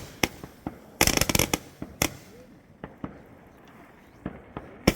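New Year's Eve fireworks going off: a rapid volley of sharp cracking reports about a second in, a single loud bang at two seconds, then scattered fainter pops and one more sharp bang near the end.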